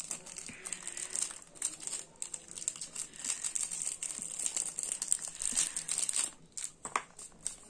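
Thin clear plastic wrapper crinkling and crackling as fingers peel and tear it open, with quick irregular crackles that thin out near the end.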